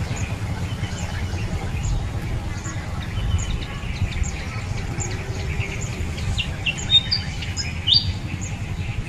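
Small birds chirping: a short high chirp repeating about every 0.7 seconds, with a few louder chirps near the end, over a steady low rumble.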